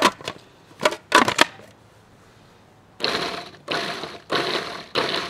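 A few sharp clicks and knocks, then, about three seconds in, a food processor pulsed in short bursts of about half a second each, chopping fire-roasted tomatoes, onions, jalapeños and garlic into salsa.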